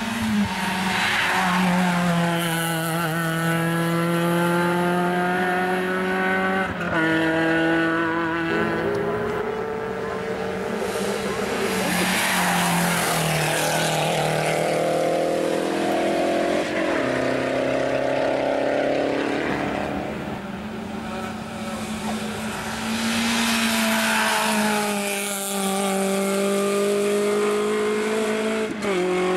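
Competition cars' engines accelerating hard up a hill-climb course. The revs climb and then drop sharply at each gear change, several shifts in a row.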